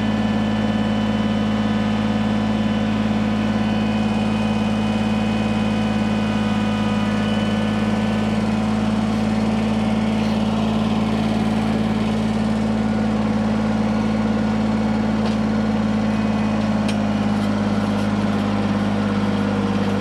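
An engine running steadily at an unchanging speed, a constant low hum that neither rises nor falls.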